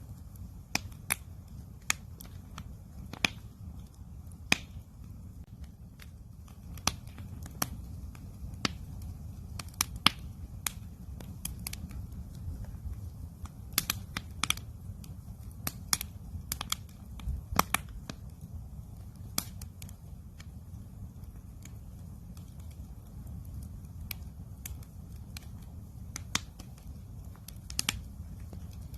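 Wood campfire crackling, with sharp pops at irregular intervals, a few of them loud, over a steady low rumble.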